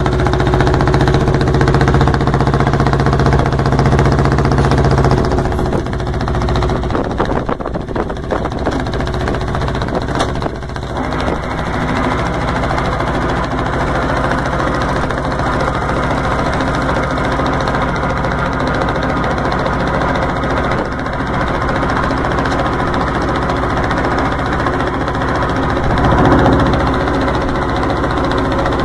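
Big cold diesel engine of an old crawler tractor starting up abruptly and running. Its note changes about five or six seconds in, and it then settles into a steady idle.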